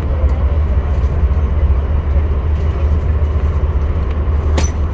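Via Rail passenger train running along the track, heard from inside a coach as a steady, deep rumble with a sharp click near the end.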